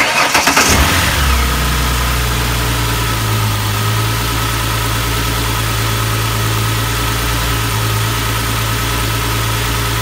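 Car engine started: the starter cranks briefly, the engine catches about a second in, then settles into a steady idle with a constant high tone over it.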